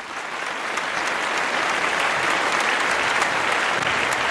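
A large audience applauding: many hands clapping in a dense patter that swells up over the first second and then holds steady.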